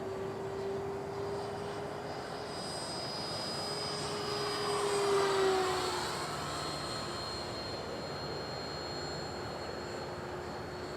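E-flite Viper 70mm electric ducted-fan RC jet flying past, its steady fan whine swelling to a peak about five seconds in and then dropping in pitch as it goes by.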